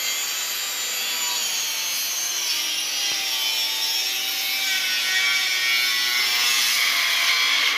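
A power tool working wood: a loud, steady rasping noise with a motor whine that drifts slowly in pitch. It starts and cuts off abruptly.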